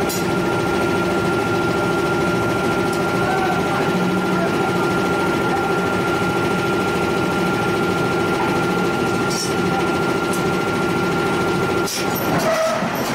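Steady hum of a forge's power-hammer machinery running, with held tones. Near the end the hum changes and a few sharp metal knocks sound as the hammer die meets the punch on the hot flange.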